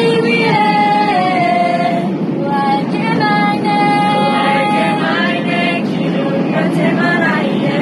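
A small group of young voices singing a Māori waiata together, unaccompanied, in long held notes that glide between pitches. A steady airliner cabin hum lies underneath.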